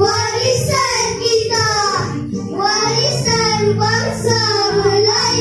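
A child's voice singing into a microphone through a PA, over steady backing music.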